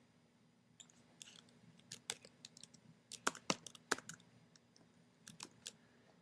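Faint typing on a computer keyboard: an irregular run of key clicks that starts about a second in and stops shortly before the end.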